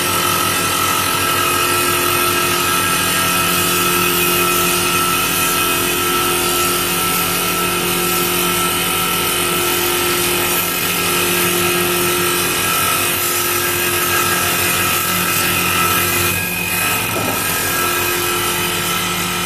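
CNC wood lathe turning a wooden bar: the cutter rasps against the spinning wood over a steady motor and spindle whine. The tones break and shift briefly about sixteen seconds in, then the running carries on.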